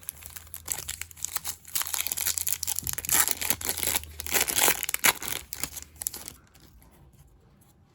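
A Topps Chrome trading-card pack wrapper being torn open and crinkled by hand. It is a dense run of crackly tearing and crumpling for about five seconds, then it quietens.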